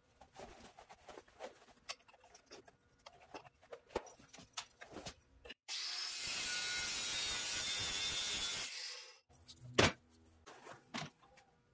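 Angle grinder cutting partway into steel rebar, a loud steady grind lasting about three seconds that starts and stops abruptly about halfway through. Before it come scattered light knocks and clicks, and a single sharp knock follows soon after it stops.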